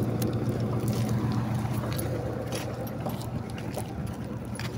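An engine running steadily, a low even hum that fades a little after about two seconds, with a few faint clicks over it.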